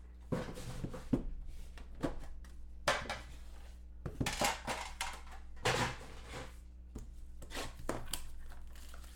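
A sports card box being opened and its contents handled: irregular clicks, knocks and rustling scrapes of cardboard and wrapping.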